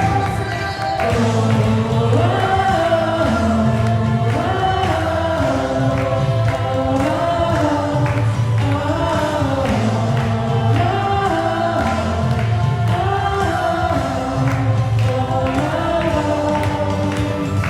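Worship song: voices singing a slow melody over steady instrumental accompaniment with sustained low bass notes.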